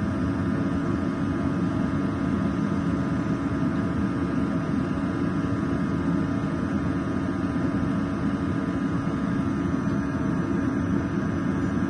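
EOGB Sapphire oil boiler's pressure-jet burner firing steadily at high fire (about 20 bar pump pressure) during combustion setup: an even rush of fan and flame with a constant hum and a cluster of steady higher tones.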